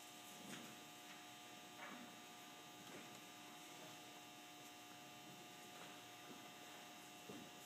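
Near silence: a steady electrical hum, with a few faint soft knocks.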